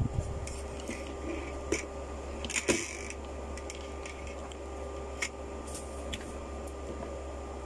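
Plastic ring light and its cable being handled and set down on a table: scattered light clicks and knocks, the loudest about three seconds in, over a steady low hum.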